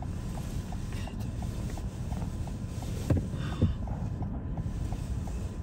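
Steady low rumble of strong wind buffeting the car, with a faint rapid ticking about five times a second.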